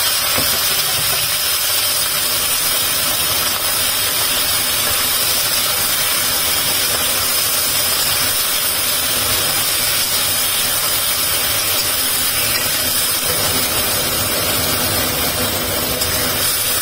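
Scallops sizzling in a hot wok, a steady hiss of frying and steam as the water in the pan cooks off, with a steady mechanical hum underneath.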